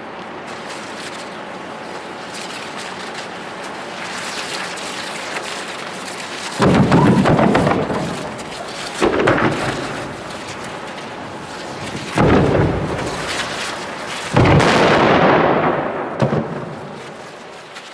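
A hissing burn that swells over the first few seconds, then four loud booms about two to three seconds apart, each trailing off over a second or so: hydrogen balloons being set off one after another.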